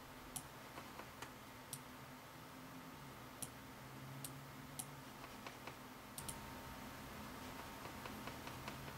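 Logitech G400 gaming mouse buttons clicking at irregular intervals as the pointer drags settings sliders, some clicks sharp and bright, others duller, with a quick run of small clicks near the end.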